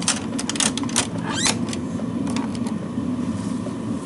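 Autoterm Air 2D (Planar 2D) diesel air heater running steadily in its aluminium box, a low even hum of its fan and burner. Several sharp metal clicks and a short scrape in the first second and a half as the box's aluminium lid is shut and its latches snapped closed.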